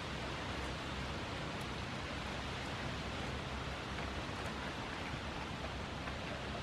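A steady, even hiss of background noise, with no distinct sound standing out.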